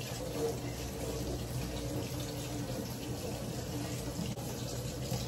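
Kitchen faucet running steadily into a stainless steel sink while potatoes are rinsed and rubbed clean by hand under the stream.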